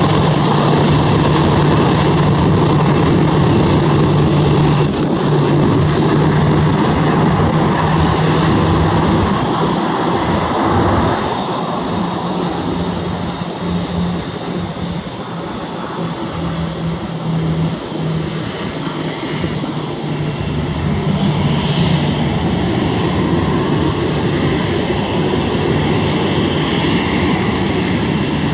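Boeing 737-800's CFM56-7B jet engines running at taxi power as the airliner turns and taxis on the runway: a steady jet whine and rumble, dropping somewhat around the middle and swelling again toward the end.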